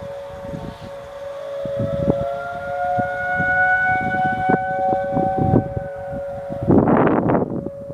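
Outdoor tornado warning siren wailing: its tone climbs, holds for a few seconds and falls away, over a second steady siren tone. Loud gusts of wind buffet the microphone near the end.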